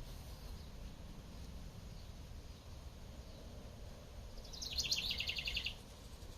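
A bird sings a rapid trill of short high notes about four and a half seconds in, over a steady low rumble of outdoor background noise.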